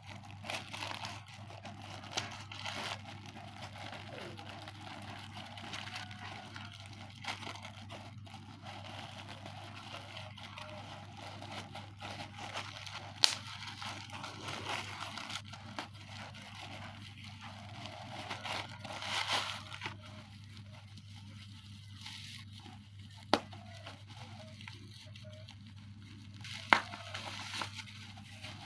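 Parcel packaging being handled and opened: irregular crinkling and rustling with some tearing, and a few sharp snaps, the loudest about halfway through and near the end.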